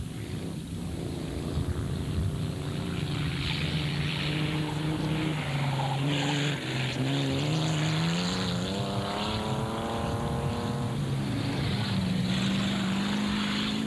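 Race car engines running hard on a dirt track, more than one at different pitches. About halfway through, one drops in pitch and then climbs steadily as it accelerates again, over a steady hiss.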